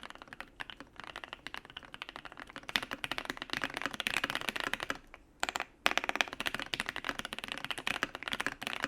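Typing on a U80-A SEQ2 mechanical keyboard with a brass plate, PE foam and lubed, filmed switches: a steady stream of rapid keystrokes. It gets busier and louder about three seconds in, with a brief pause a little after five seconds.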